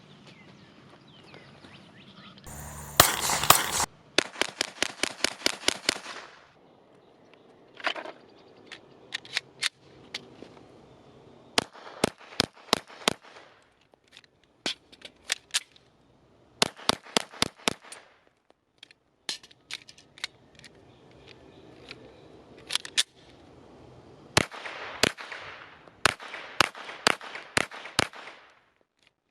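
Glock 17L 9mm pistol fired in quick strings of shots, several a second, with short pauses between strings. The loudest stretch is a dense run of shots about three seconds in.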